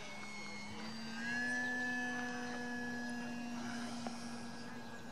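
Radio-controlled model floatplane flying past, its motor and propeller giving a steady drone that rises slightly in pitch and grows louder about a second in, then eases off toward the end.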